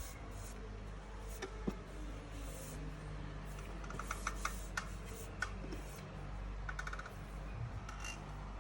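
Scattered light clicks and taps of computer hardware being handled during a GPU module swap, several in quick succession about four to five seconds in and a few more near the end, over a steady low hum.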